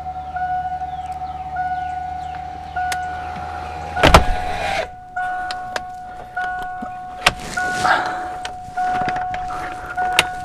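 Electric motor in a 1988 Mustang convertible running, then stopping with a loud thump about four seconds in. A steady electronic tone with a second tone repeating about once a second, like a car warning chime, sounds throughout.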